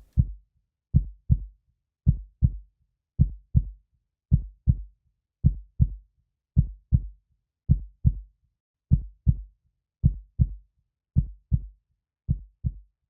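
Heartbeat: a steady lub-dub of paired low thumps, about one beat a second, with silence between the beats.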